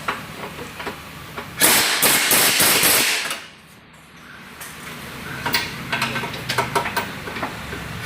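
Hammer blows on metal while working on a car's steering and suspension parts. A fast run of strikes comes about a second and a half in, and lighter knocks and clanks follow after a short pause.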